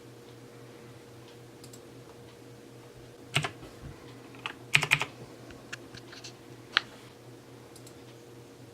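A few sharp clicks and taps, most of them bunched around the middle, over a faint steady hum.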